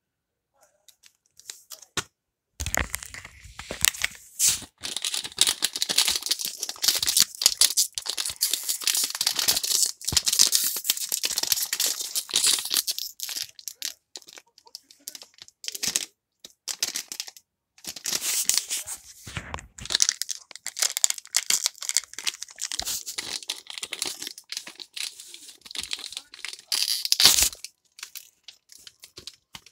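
Foil blind bag being crinkled and torn open by hand: a crackly rustling that starts about two and a half seconds in, comes in stretches with short pauses, and stops shortly before the end.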